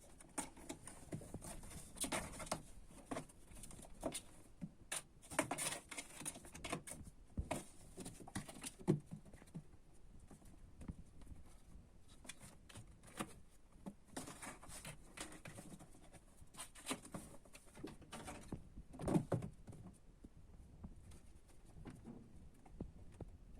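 Kittens moving about and being handled: scattered light clicks, knocks and patter, with busier stretches a few times and a louder lower sound near the end.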